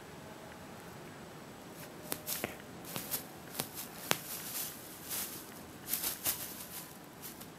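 Silver foil tinsel rustling and crinkling as a kitten paws at it and tumbles through it. Quiet at first, then from about two seconds in a run of crackly rustles and sharp clicks.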